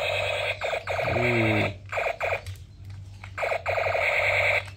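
Battery-powered toy M416 rifle's sound chip playing an electronic machine-gun firing effect in repeated bursts as the trigger is pulled, the longest burst near the end.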